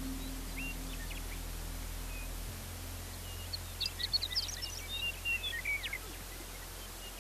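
Soft background music stops about two and a half seconds in, leaving a steady low hum; then a quick burst of high, short chirps and twitters from small songbirds.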